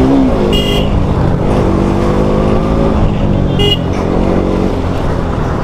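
KTM Duke motorcycle engine running under way in traffic, its pitch rising slightly over the first three seconds, over wind and road rumble. Two short horn beeps, about half a second in and near the four-second mark.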